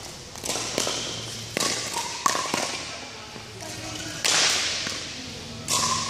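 Pickleball rally: hard paddles striking a plastic pickleball, about five sharp pops in the first three seconds, then two short, louder rushes of noise after play stops.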